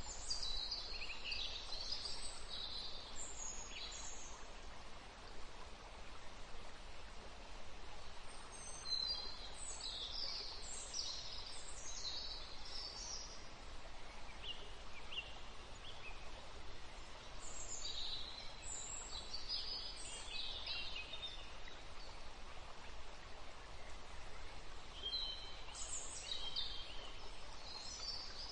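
Birds chirping in short, high phrases that come in clusters every few seconds, over a steady background hiss.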